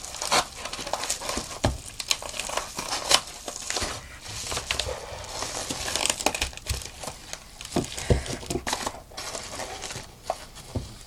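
Mail-order packaging being torn open and handled by hand: continuous crinkling and rustling with many sharp, irregular crackles.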